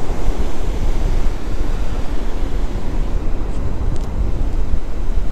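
Wind buffeting the microphone in a steady low rumble, mixed with ocean surf washing in.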